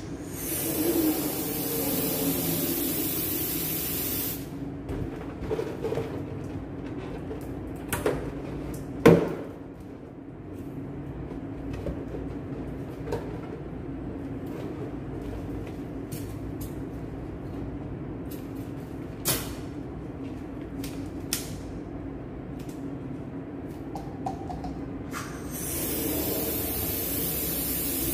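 Helium hissing from a cylinder's inflator nozzle into a red latex balloon. The hiss comes in two bursts, one for the first four seconds or so and one starting near the end. In between come light handling clicks and one sharp knock about nine seconds in.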